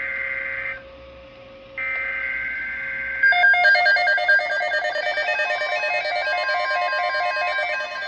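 Emergency Alert System data bursts from NOAA Weather Radio: a harsh buzzy screech cuts off under a second in and returns about two seconds in for over a second, announcing a severe thunderstorm watch. About three seconds in, a louder rapid electronic run of stepping beeps takes over and keeps going.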